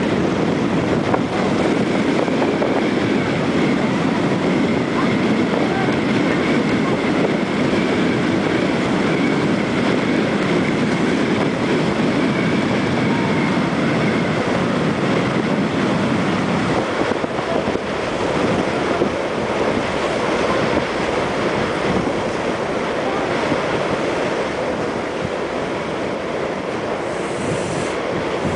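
Catamaran ferry under way: a steady rush of water along the hulls over the drone of its engines, with wind buffeting the microphone. A faint high whine runs through the first half.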